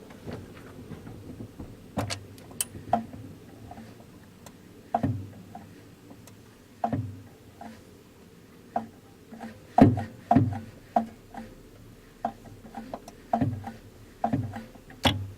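Irregular knocks, clunks and clicks, loudest about two-thirds of the way in, as of hand work on a car with tools and parts being handled.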